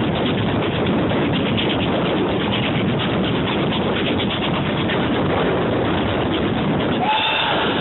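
Heritage steam train running: a steady, loud rushing noise with rapid irregular clicks, and a brief whistle-like tone about seven seconds in.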